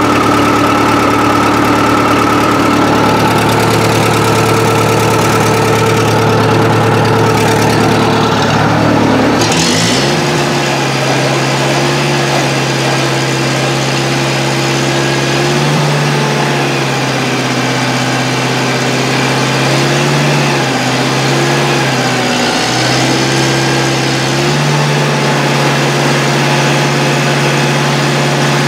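Gasoline engine of a 1970s Bobcat 610 skid steer running steadily after a cold start. About ten seconds in its speed rises with a brief clunk, and it then runs faster with a few small dips in speed.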